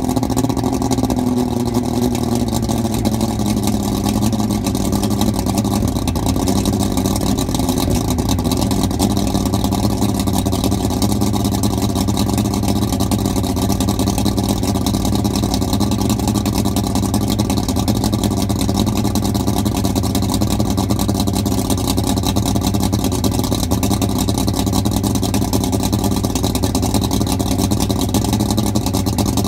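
Yamaha OX66 250 HP two-stroke V6 outboard idling steadily on a cold start after winterizing, burning off its fogging oil. Its idle note falls a little over the first few seconds and then holds even.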